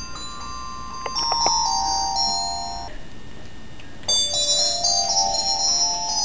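A cell phone ringtone playing: a simple electronic melody of clean held notes, pausing about three seconds in and starting a new phrase about a second later.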